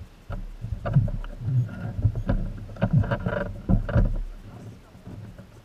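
Irregular knocks and thumps against a Yamaha jet ski's hull as it bumps and rocks at a wooden dock, busiest in the middle, with water sloshing.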